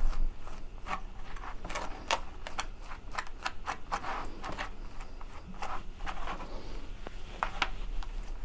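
Table knife spreading butter on slices of rye bread: a run of short, irregular scrapes of the blade across the bread, several a second.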